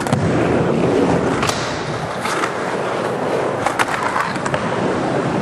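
Skateboard wheels rolling steadily on the concrete of an indoor bowl, with a handful of sharp clacks from the board and trucks as it works the walls and lip.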